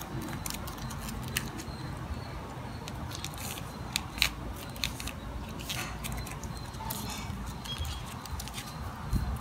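Thin metallic foil chocolate wrappers crinkling and crackling in the hands as the sheets are handled and folded, with irregular sharp crackles, the loudest about four seconds in.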